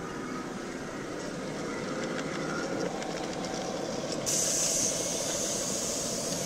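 Ridden miniature railway train, hauled by a model Class 66 locomotive, running past on its track: a steady rumble with a motor hum and light rail clicks. About four seconds in, a loud high hiss starts and carries on.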